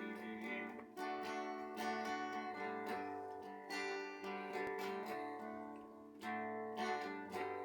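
Acoustic guitar strumming chords in a steady rhythm, with no singing over it.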